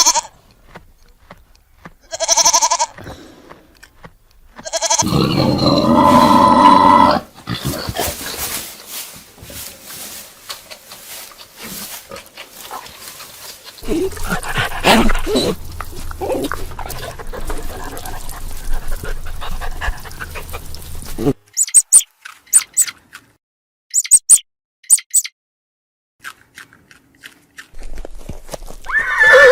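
A series of different animal calls with breaks between them: a short pitched call, then a longer one, stretches of noisier animal sound, and a run of sharp clicks.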